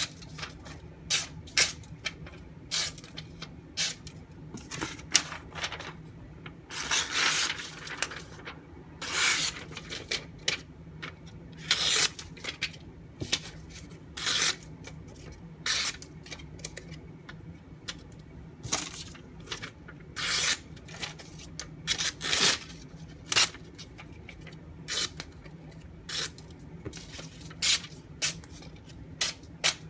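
A knife blade making repeated short, irregular scraping and slicing strokes, some lasting about a second, over a faint low hum.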